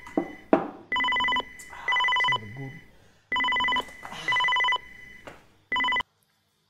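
Telephone ringing in a double-ring pattern: pairs of rings about half a second each, with a pause between pairs. The last ring is cut off short about six seconds in.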